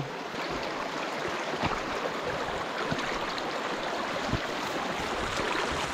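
A brook running higher than normal, a steady rush of flowing water, with a few faint knocks.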